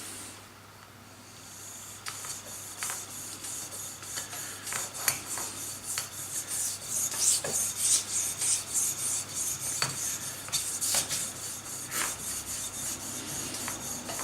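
Knife blade stroked back and forth on a natural sharpening stone: a run of gritty rasping strokes that starts about two seconds in and keeps going.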